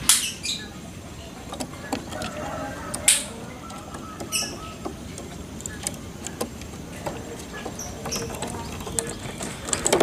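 A small caged bird moving about its bamboo cage: scattered sharp taps and knocks with wing flutters, the loudest near the start, about three seconds in, and near the end.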